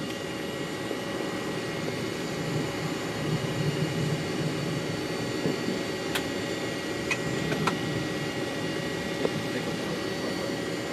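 Steady jet airliner engine noise on a takeoff run from Brussels, with the brakes just released, and a few faint clicks.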